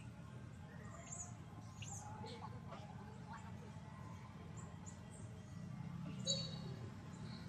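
Outdoor forest background: scattered short, high bird chirps over a steady low rumble, with one louder, sharper call about six seconds in.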